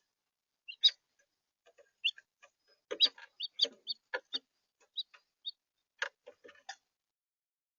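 House finches giving short, scattered chirping calls, mixed with several sharp clicks.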